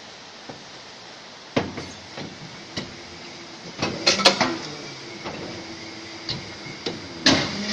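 Injection moulding machine cycling a lamp-lens mould: sharp metal clunks and clicks as the mould plates open and close, loudest in a quick cluster about four seconds in and again near the end, over a steady machine hum that sets in about halfway.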